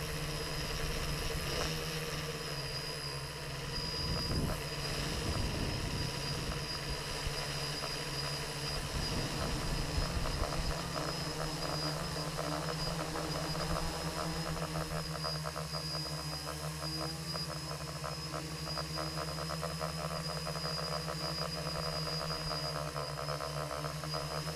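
Quadcopter's electric motors and propellers running steadily in flight, heard from the camera mounted on the drone itself: a steady high whine over a fast buzz that gets stronger about halfway through as the drone skims low along the ground.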